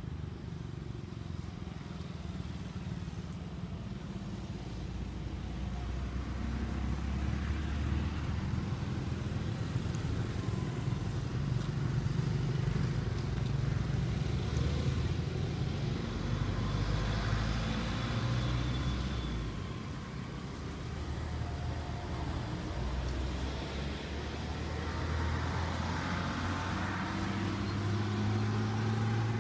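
Motor vehicle engines running, a low hum whose pitch shifts slowly as it swells and fades, loudest around the middle and again near the end.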